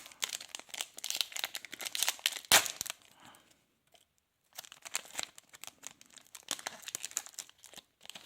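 Trading card pack wrapper crinkling as it is handled and torn open, with one sharp rip about two and a half seconds in. More crinkling follows a short pause.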